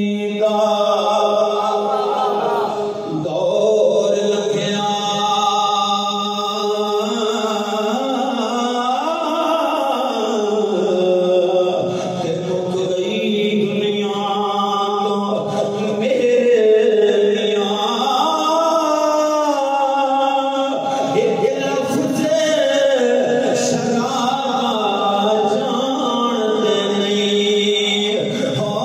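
A man chanting a melodic religious recitation into a microphone, holding long notes that slide up and down in pitch.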